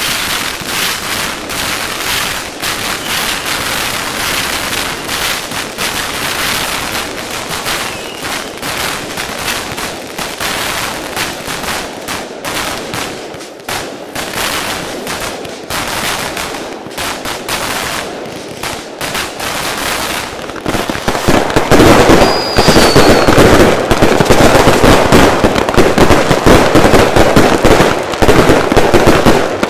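Fireworks and firecrackers going off in rapid, dense volleys of bangs and crackles, much louder from about two-thirds of the way in.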